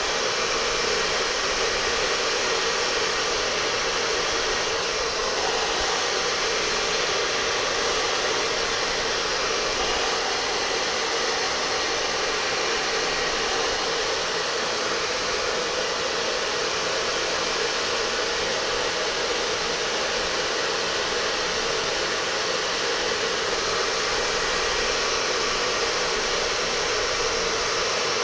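Steady rushing air from an electric blower driving up at a long-sleeved cotton T-shirt, with the fabric fluttering in the airflow. The rush holds at one even level throughout.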